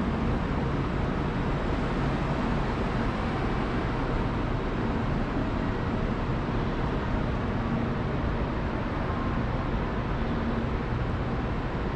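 Steady rumble and hiss of a covered station platform beside a standing JR Kyushu 885 series electric train, with a few faint steady hums.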